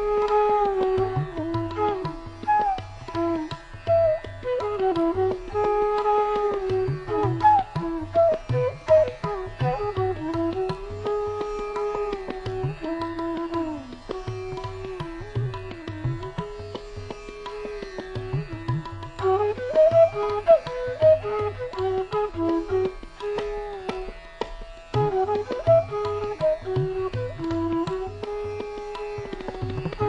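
Background Indian classical instrumental music: a sliding, bending melodic line over repeated hand-drum strokes.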